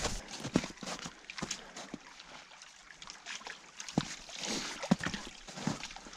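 Footsteps in rubber boots walking through snow, then splashing and sloshing as the boots wade through a shallow creek, in irregular steps.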